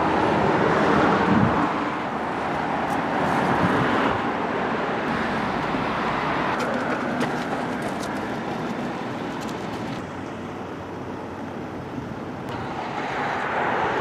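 Road traffic going past: a steady rush of tyres and engines that eases off about ten seconds in and builds again near the end.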